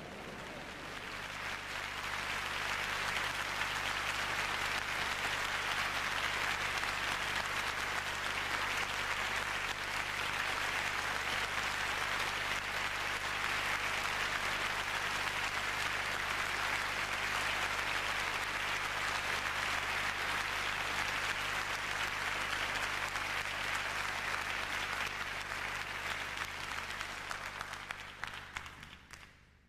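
Audience applauding steadily in a concert hall, dying away over the last couple of seconds.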